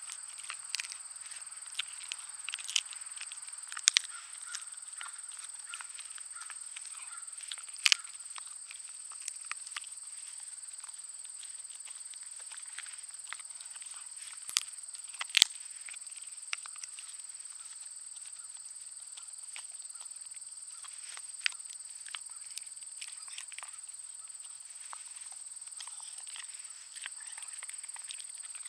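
A Schnauzer–pug mix dog chewing a bone: irregular crunches and small cracks, with a few louder snaps about 4, 8 and 15 seconds in. A steady high-pitched drone runs underneath.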